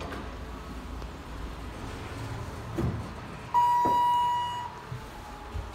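A click, then a Thyssenkrupp elevator's electronic arrival chime: one high, clear ding held for about a second and fading, over a low steady hum.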